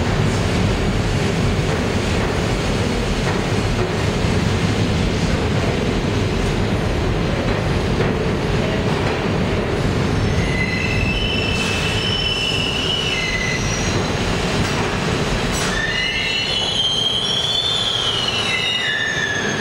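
A New York City subway train pulling into an underground station, its wheels rumbling steadily on the rails. High wheel squeals start about halfway through, then a louder squeal rises and falls near the end as the train slows almost to a stop.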